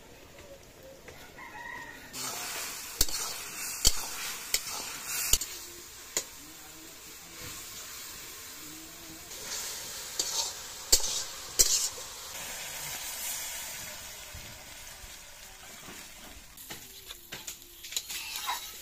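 Spinach with small fish sizzling in a black iron kadai over a wood fire, with the metal spatula scraping and knocking against the pan: a cluster of sharp knocks from about three to six seconds in, two more around eleven seconds, and lighter clicks near the end.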